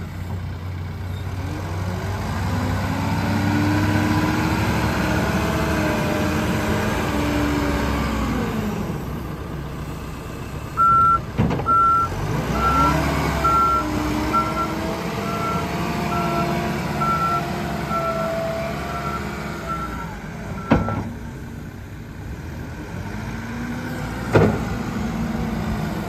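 Case 580 Super N backhoe loader's diesel engine revving up and settling back twice as the machine drives and works its loader. A backup alarm beeps steadily through the middle for about ten seconds. A few sharp knocks come near the middle and near the end.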